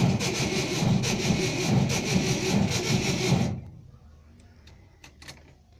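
Starter motor of a VW Type 2 (Kombi T2) cranking the engine in a rhythmic grind, stopping about three and a half seconds in without the engine catching, then a few faint clicks. This is the starter fault that leaves the van unable to start.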